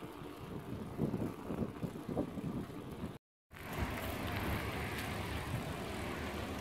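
Outdoor ride noise picked up by a smartphone on a moving bicycle: irregular low wind buffets on the microphone with tyres rolling on a paved path. A sudden brief dropout comes about three seconds in, after which a steadier rushing noise takes over.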